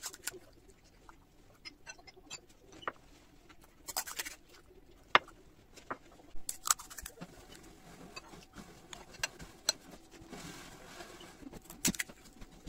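Crisp fried puri shells cracked open by hand and crunched while eating golgappa, heard as scattered sharp crackles and clicks, the loudest about five seconds in.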